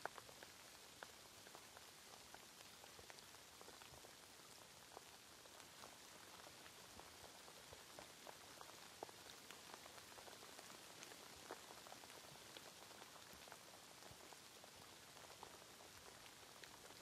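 Quiet, steady rain: an even hiss of falling rain with many separate drops ticking irregularly.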